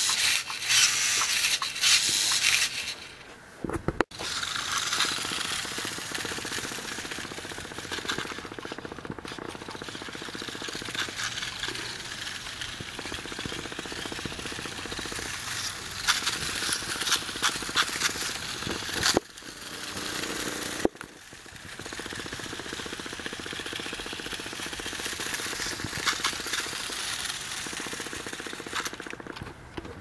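1:22-scale RC toy motorcycle's small electric motor and gears whirring with a fast rattle, and its plastic wheels running on rough pavement. The sound is loudest at the start, while the bike is held by hand, and breaks off abruptly a few times.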